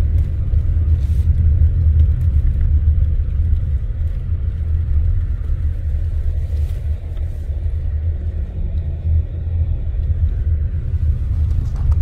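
A car driving slowly, heard from inside the cabin: a steady low rumble of engine and tyres on the road, which stops abruptly at the very end.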